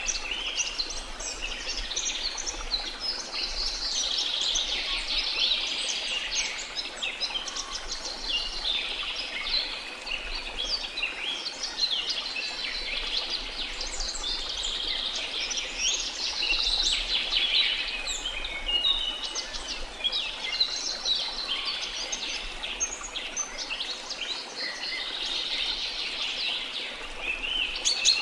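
A dense chorus of small birds chirping and twittering, with many quick high calls overlapping without a break.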